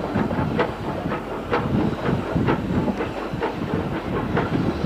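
Steam locomotive running past, with a quick irregular series of metallic clanks from its wheels and running gear over a hiss of steam.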